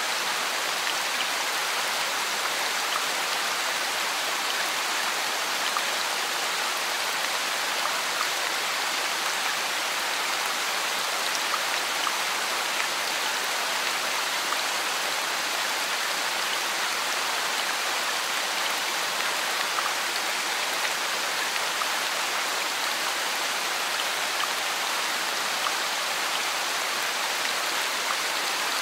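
Heavy rain falling steadily on a paved street: a dense, even hiss with scattered close drop ticks, unchanging throughout.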